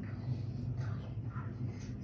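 Quiet room tone: a steady low hum with faint soft rustles.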